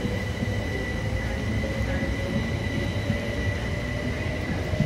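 Southern Class 377 Electrostar electric multiple unit passing at close range: a steady rumble of wheels on rail, with a high steady whine and a lower motor whine that rises slowly in pitch as the train picks up speed.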